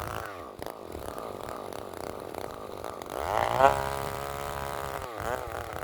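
Chainsaw engine running low, revved up sharply about three seconds in and dropping back, then given quick throttle blips near the end.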